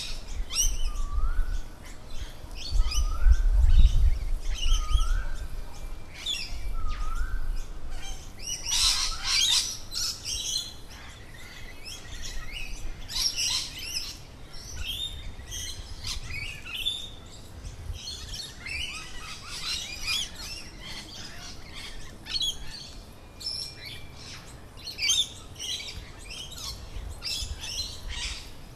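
Several birds calling in a busy chorus of short, high chirps and shrill calls. In the first several seconds one call, a rising two-step note, repeats four times about every second and a half.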